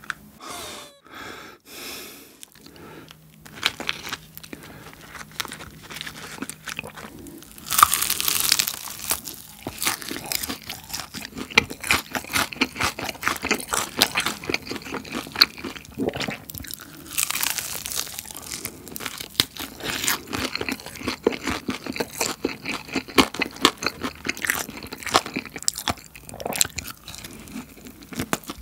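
Close-miked eating of seasoned fried chicken: crunching bites into the coated chicken and continuous wet chewing. The loudest crunches come about 8 seconds in and again about 17 seconds in.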